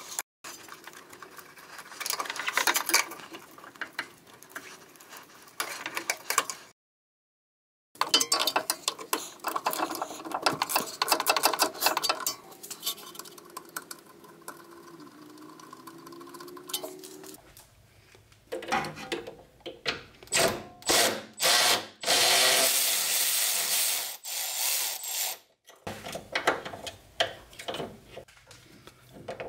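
Rapid ratchet clicking as the Allen bolts holding a BMW Z4's headlight level sensor are worked loose, followed by several short bursts and one longer run of a cordless power ratchet driving the bolts.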